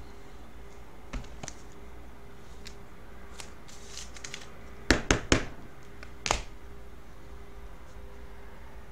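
Trading cards and plastic card holders handled by hand: small clicks and rustles, then three sharp taps close together about five seconds in and one more a second later, over a faint steady hum.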